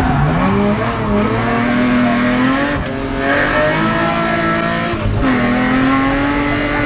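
BMW 325i E36 rally car's straight-six engine heard from inside the cabin, accelerating hard: the pitch climbs in three runs, broken by quick gear changes about three and five seconds in.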